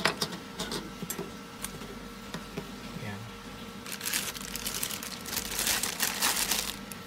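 Small items such as plastic plug adapters and cables being set down on a wooden table, with light clicks and knocks, then a crinkling rustle of packaging being handled from about four seconds in.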